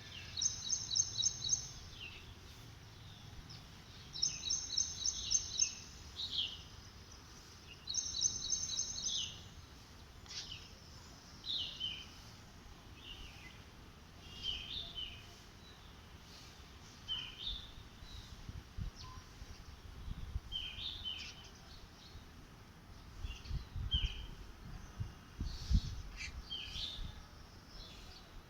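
Small birds chirping: three short, quick high trills in the first ten seconds, then scattered single downward chirps. A few low bumps near the end.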